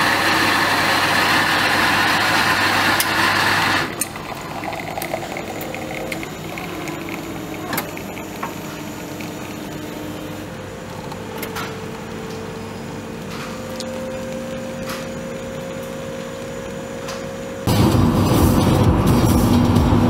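Automatic coffee machine: a loud grinding noise for about four seconds, then a quieter steady hum with a few clicks as it brews into a cup. A sudden, louder dense sound cuts in near the end.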